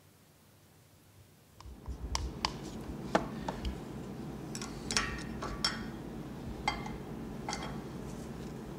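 Glass jars and pots of paint pigment clinking and knocking against each other and a plastic tub as they are handled: irregular sharp clicks, roughly one a second, over a steady room hum that starts about a second and a half in.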